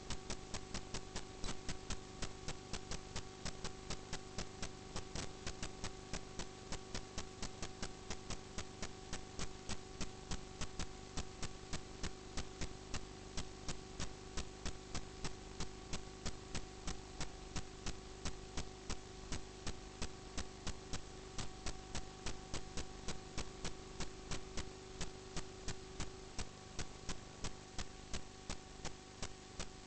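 Steady electrical hum with a regular ticking over it, about two to three ticks a second.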